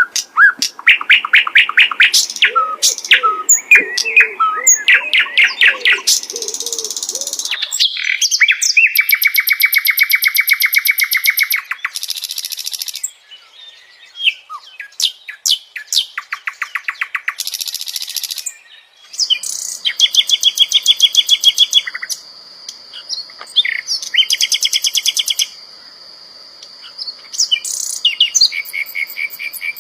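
Sikatan londo songbird singing a loud, varied song of fast repeated trills and rapid buzzy rattles, broken by short pauses. A steady high-pitched tone runs under the last third.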